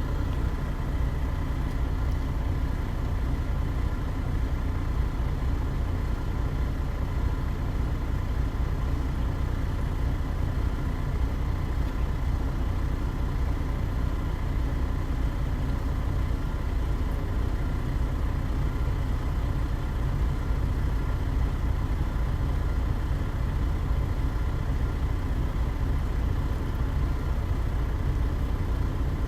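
Heavy truck engine idling steadily: a constant low rumble with a faint steady hum above it.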